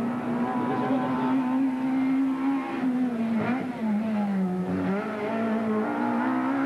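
Hill-climb race car's engine held at high revs as it climbs, a steady pitched note that sags between about three and a half and five seconds in, then rises again as it accelerates.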